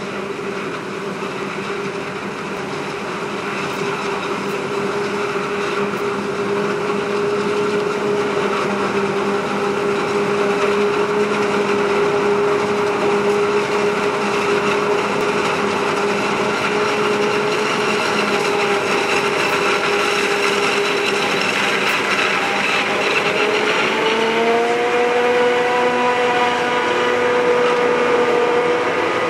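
Self-propelled forage harvester chopping maize, with a Fendt tractor pulling a silage trailer alongside: a steady machine drone with a high whine. It grows louder over the first ten seconds as the machines come closer, and the whine steps up slightly in pitch about 24 seconds in.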